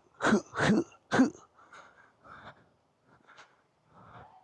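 A man breathing hard in short, forceful huffs, three loud ones in the first second and a half, then softer faint breaths and small noises.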